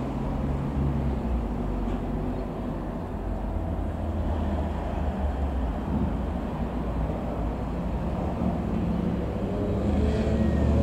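Sikorsky S-92A twin-turbine helicopter flying past: a steady low drone of rotor and engines that grows louder near the end.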